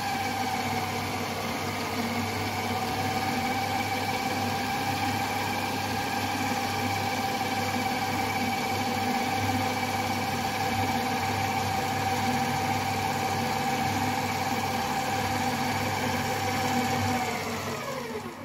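Stand mixer running at its lowest speed, mixing flour and water into a rough dough: a steady motor whine over a low hum. Near the end the whine drops in pitch as the motor winds down and stops.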